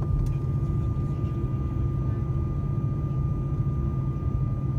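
Airbus A340-300's CFM56 turbofan engines heard from inside the cabin over the wing, running steadily at taxi power: an even low rumble with a thin, steady high whine above it.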